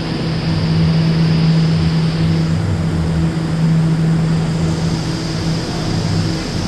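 HVAC system of a New York City Subway R179 car running with a steady drone: a strong low hum over a rumble, with a faint high whine above.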